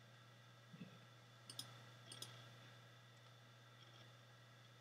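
Near silence with a few faint, short clicks from operating a computer: about a second in, at one and a half seconds and just after two seconds, over a low steady hum.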